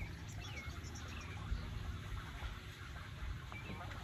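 Birds chirping faintly in the background, short downward-sloping chirps repeated every second or so, over a low background rumble.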